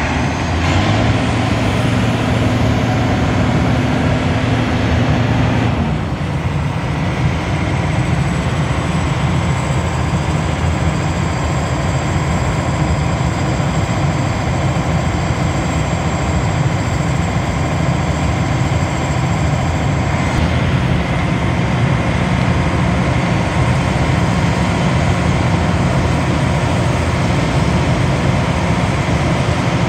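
John Deere 9870 STS combine's diesel engine running loud and steady as the machine moves around the yard. A held hum in its sound drops in pitch about six seconds in, and a faint high whine comes in from about eight to twenty seconds in.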